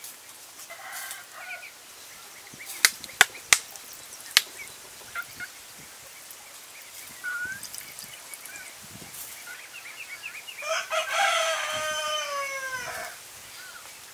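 A rooster crows once near the end, a single long call of about two and a half seconds that drops in pitch as it closes. Earlier come a few short chicken calls and a quick run of four sharp clicks about three seconds in.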